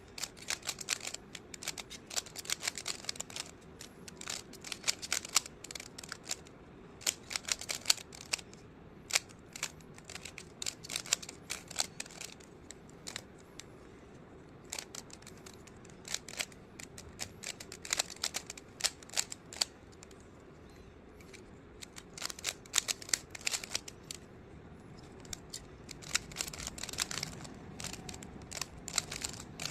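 Plastic Rubik's Cube being turned by hand: quick, irregular runs of sharp clicks as the layers twist, with short pauses between the runs.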